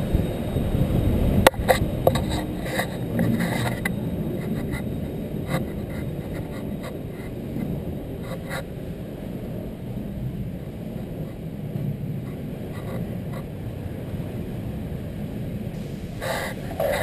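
Inline skate wheels rolling over a concrete parking-garage floor: a steady low rumble, with scattered clicks and a sharp knock about one and a half seconds in.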